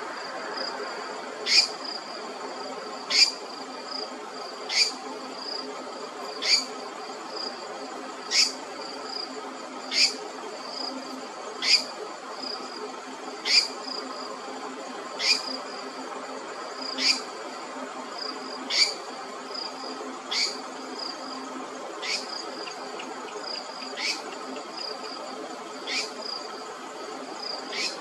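Night insects trilling steadily, with a short sharp high chirp repeating evenly about every 1.7 seconds.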